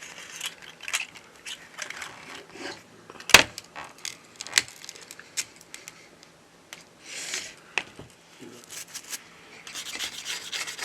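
Small hand tools scraping and clicking against a smartphone's frame and cracked glass as the glued screen is pried loose. There is one sharp click about three seconds in, and the scraping gets busier near the end.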